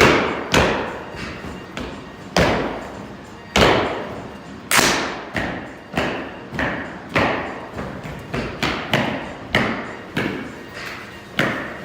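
A step team stepping: a syncopated run of sharp stomps and claps, about two to three hits a second, with no music behind them.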